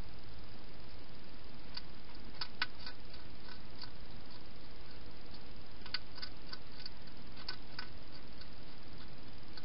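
Wild hedgehog eating at a food bowl: irregular sharp crunching clicks in two short clusters, over a steady hiss.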